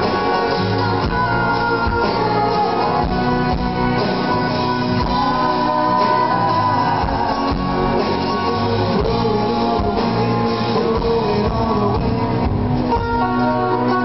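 Live band playing an instrumental passage at a steady level, with mandolin, banjo, acoustic guitar, electric bass and drums.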